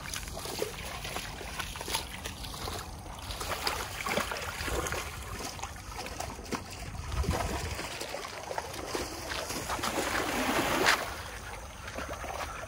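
Feet wading and splashing through a shallow stream, with the water trickling around them; the loudest splash comes near the end.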